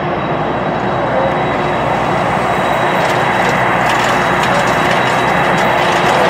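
Boeing 747-400 freighter's four jet engines running while it taxis: a loud, steady rush with a faint steady whine, growing slightly louder about a second in.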